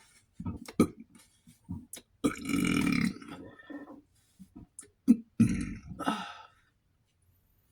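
A man belching loudly twice, one long burp about two seconds in and another about five and a half seconds in, with small mouth clicks around them.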